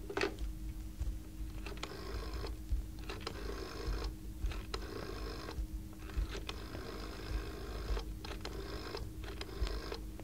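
Telephone handset picked up with a knock, then a rotary dial wound and let go for digit after digit. Each return of the dial is a short whirring run of clicks, and the runs differ in length with the number dialled.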